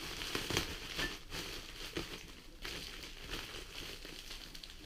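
Plastic packaging crinkling and rustling with scattered light clicks as engine valves are handled in their wrapping.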